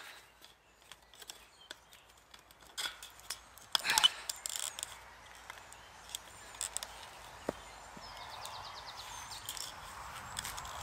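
Fence wire being wrapped and pulled tight around a wooden post by gloved hands: scattered small clicks and scrapes of the wire, with a louder scrape about four seconds in.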